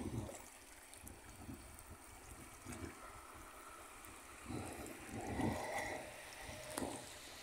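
Water sloshing and swirling around legs as people wade thigh-deep through floodwater, with louder surges of sloshing about two-thirds of the way through.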